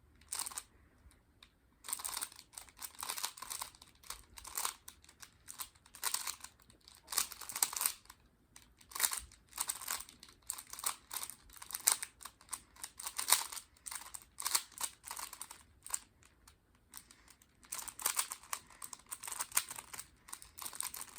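3x3 Rubik's cube being speed-solved: rapid runs of plastic clicking and clacking as the layers are turned, broken by brief pauses.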